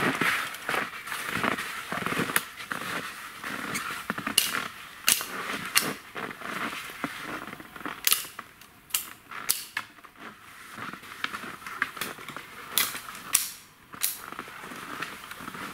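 Skis and footsteps crunching through snow: a run of irregular sharp crackles and crunches.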